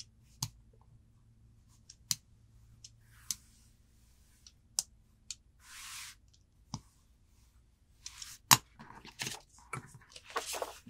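A 28 mm rotary cutter cutting through fabric on a cutting mat in short strokes, with scattered clicks and taps of the cutter and tools on the table. Near the end the fabric rustles as it is handled and folded.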